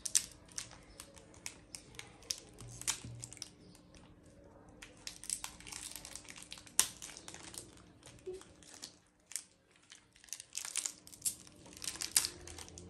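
A biscuit wrapper being torn and crinkled open by hand: irregular crackling and rustling, with a short quieter lull about two-thirds of the way through.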